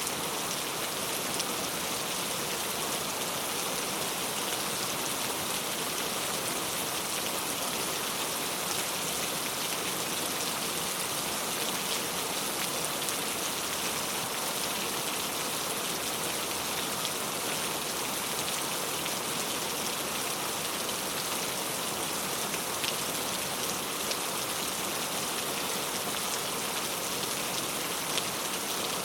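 Heavy rain falling steadily, a dense hiss of drops with fine patter.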